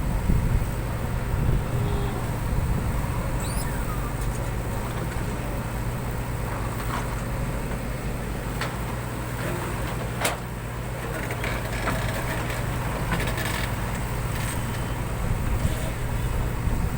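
JCB 3DX backhoe loader's diesel engine running steadily, with a single sharp knock about ten seconds in.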